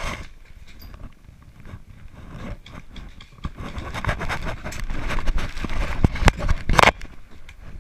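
Clothing and gear rustling and scraping against the body-mounted microphone as an airsoft player moves, louder in the second half, with a few sharp knocks near the end.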